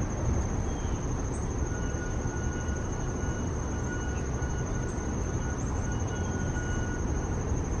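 Outdoor background noise: a steady low rumble with a constant high-pitched whine over it, and a faint thin whistle that comes and goes in the middle.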